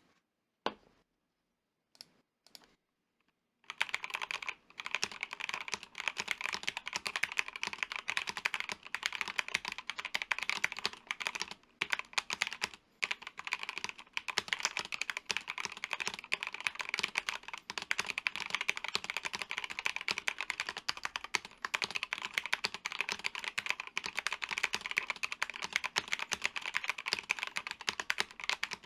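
Akko MOD007 mechanical keyboard being typed on: a few single keystrokes, then fast, continuous typing from about four seconds in.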